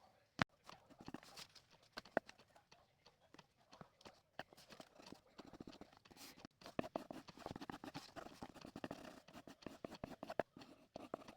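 Pencil scratching and tapping on paper while drawing: faint, uneven strokes mixed with short clicks.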